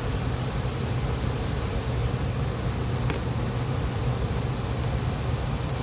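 A steady low mechanical hum, like a fan or air-conditioning unit running, with one faint click about three seconds in.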